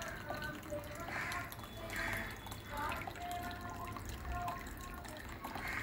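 Small tabletop decorative fountain: water trickling down an artificial rock cascade and dripping into its basin, with many quick, plinking drops.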